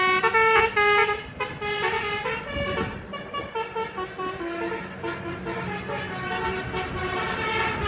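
Bus telolet horn of the basuri type, a multi-trumpet air horn, playing a tune of short stepping notes, loudest in the first second or so and then fainter. A bus engine rumbles underneath.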